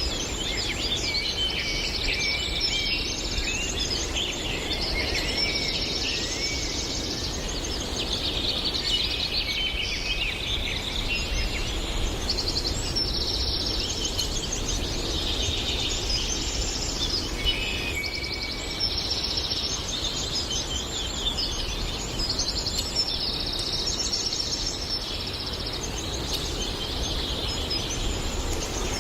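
A chorus of many wild birds singing and chirping at once, overlapping trills and twitters with no pause, over a steady low background rumble.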